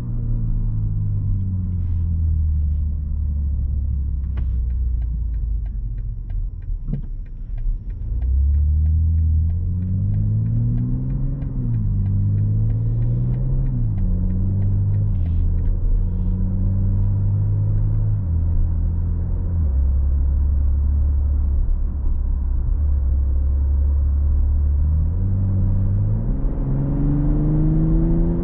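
2020 BMW M340i's 3.0-litre turbocharged inline-six heard from inside the cabin in SPORT+ mode while driving. The revs fall, then climb twice with a quick step down in pitch at each gear change of the 8-speed automatic, hold low and steady for a while, and rise again under acceleration near the end. A run of faint regular ticks sits under the engine in the first third.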